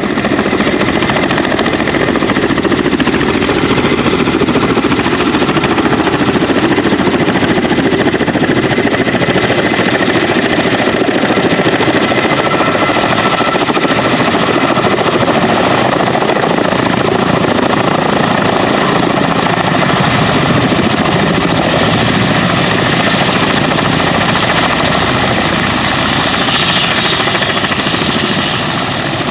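Kamov Ka-32 coaxial-rotor helicopter running: a loud, steady rotor noise with a high turbine whine. The whine drops slightly in pitch near the end.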